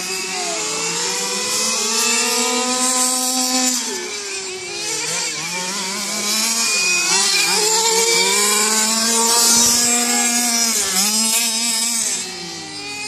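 Small two-stroke engines of radio-controlled race cars running hard, the pitch climbing and falling again every few seconds as they accelerate, back off for turns and pass.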